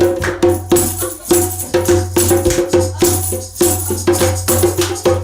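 Music with a steady beat: a sustained bass line under evenly repeated percussion strokes and a bright shaking sound in the highs.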